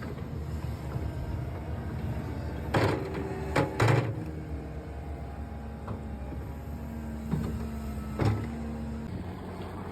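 Diesel heavy equipment running steadily, with a few sharp metal clanks about three to four seconds in and again near eight seconds.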